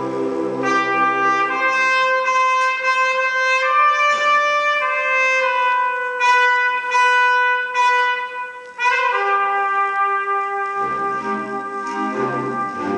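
Concert band music: a solo trumpet plays a lyrical melody, moving note to note, over a low held chord that soon drops away. After a short break the melody resumes, and the low band parts come back in about eleven seconds in.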